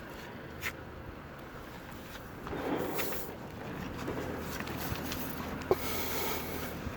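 Plastic spreader scraping and rubbing polyester filler onto fiberglass, louder for about a second near the middle, with a few light clicks, one sharp near the end.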